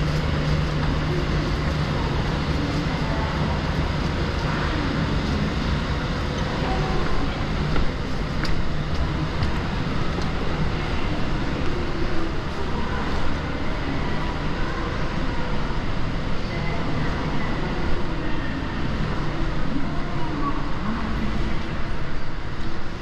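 Shopping-centre ambience: a steady background wash with a low hum and faint, indistinct voices of people around.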